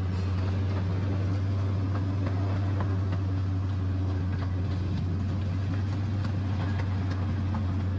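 Miniature train running at a steady pace, a constant low drone with faint scattered clicks.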